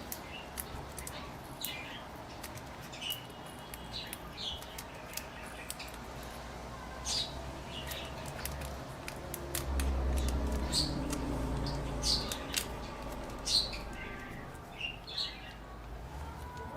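Scattered small clicks and short high squeaks from peeling the adhesive backlight sheet off a MacBook Air keyboard, over a low hum that swells for a couple of seconds near the middle.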